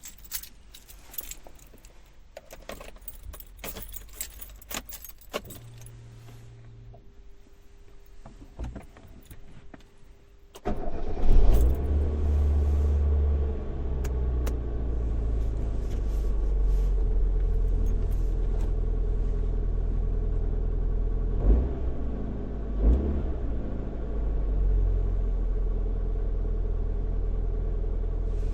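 Car keys jangling and clicking in the ignition inside a car's cabin, a few seconds of low electrical hum, then the engine starts suddenly about ten seconds in, revs briefly and settles into a steady idle.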